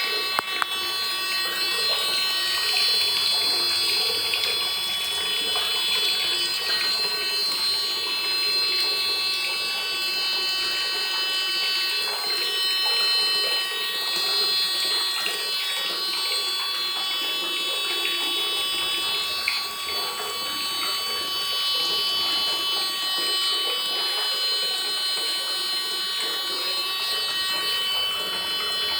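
Homemade water overflow alarm's buzzer sounding steadily as several held tones, with water running beneath it: the alarm is signalling that the water has reached the overflow level.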